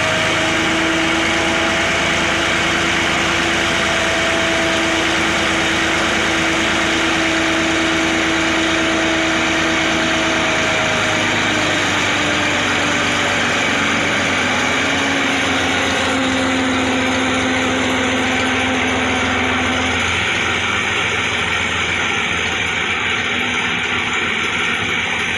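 TAFE tractor's diesel engine running steadily while working the hydraulic tipping trolley to dump soil, with a steady hum whose pitch drops a little about halfway through.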